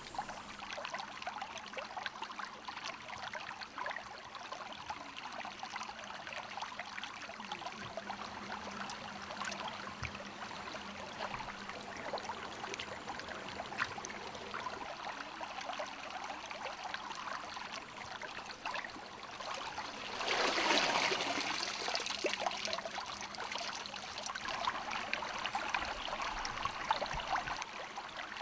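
Shallow river water trickling and splashing, with a louder rush of water about two-thirds of the way through.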